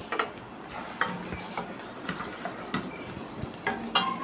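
Wooden spatula stirring sliced onions in a stainless steel pot, knocking and scraping against the metal in irregular clicks. The onions are being sautéed in lightly warmed oil until soft and transparent.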